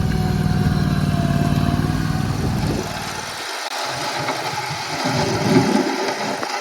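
Mini skid steer loader's engine running steadily; about three seconds in its low engine note drops away, leaving a thinner, noisier mechanical sound.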